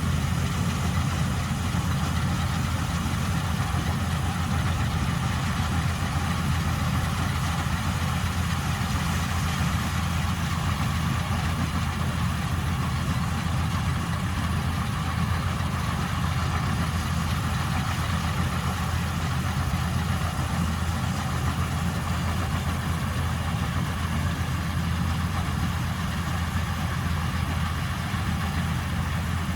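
Old Polish Vistula KZB-3B combine harvester running steadily while harvesting grain, a continuous engine drone that does not change in speed.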